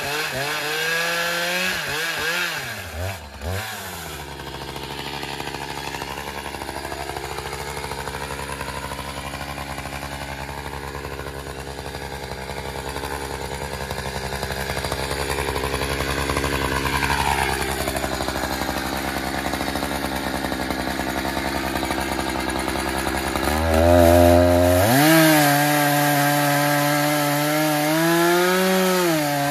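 Echo CS-590 TimberWolf two-stroke chainsaw running under load, cutting through a poplar log. Near the end the engine pitch rises sharply and it gets louder, revving higher.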